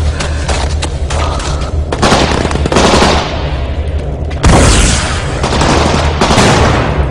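Rapid gunfire with two heavy blasts, about two seconds in and about four and a half seconds in, each fading out slowly, over a steady low hum.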